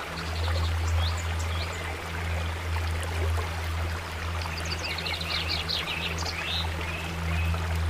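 Water flowing steadily in a stream, with birds chirping over it, a few calls about a second in and a busy run of chirps past the middle. A low steady drone runs underneath.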